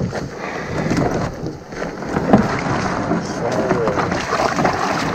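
Shallow lake water splashing and sloshing as a person steps off a plastic boat and wades, with a few knocks against the hull.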